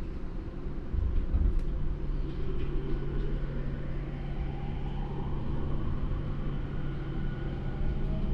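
Inside a JR E231 series commuter train: the Mitsubishi IGBT VVVF inverter and traction motors give a steady hum and a faint whine that rises slowly in pitch as the train accelerates. Under it is the rumble of wheels on the rails, with a couple of sharp clicks early on.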